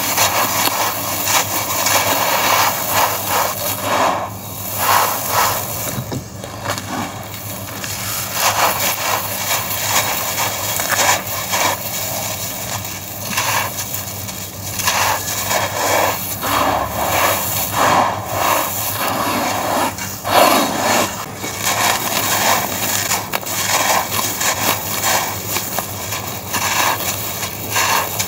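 Molded balls of coarse, gritty sand crushed and crumbled by hand, the grains crunching and pouring down onto the heap in a continuous gritty crackle that swells and eases with each squeeze.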